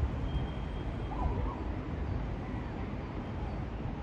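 Widebody jet airliner passing overhead, a steady low rumble of its engines. A few faint bird chirps come about a second in.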